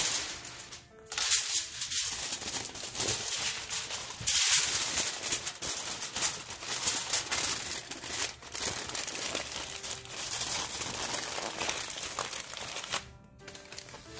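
Aluminium foil crinkling and crackling as it is folded and pressed around a parcel by hand, in several long bouts with short pauses between. Faint background music underneath.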